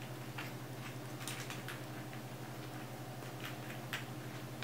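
A puppy scrabbling and tugging at a plush toy, its claws making irregular light clicks and taps on the rug and hard floor, over a steady low hum.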